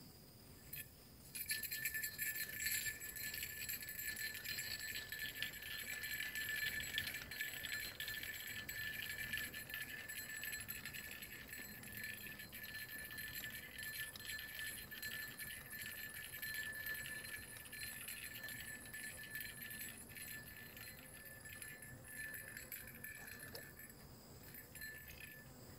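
Fishing reel's drag clicking in a fast, high-pitched rattle as line is pulled off the spool by something on the hook. It starts about a second in, swells, and eases off near the end.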